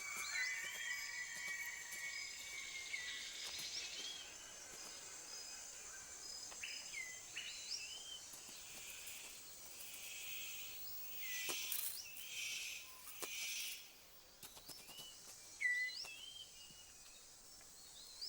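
Tropical rainforest ambience: a steady high-pitched insect drone with scattered short, rising bird chirps. Several louder bursts of hiss come about halfway through.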